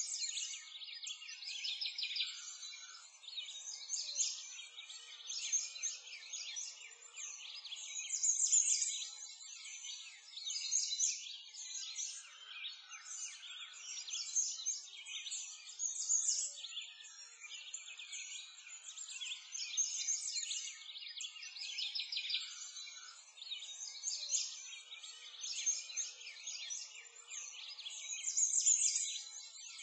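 A dense, steady chorus of many small birds chirping and singing.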